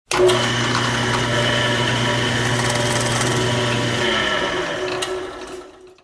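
Drill press motor running with a steady hum and whine that starts suddenly. About four seconds in it is switched off, and the pitch falls as it spins down, fading out by the end.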